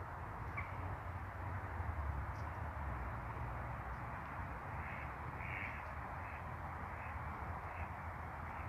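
A crow cawing, a run of about five short calls in the second half, over a steady background hiss and low rumble.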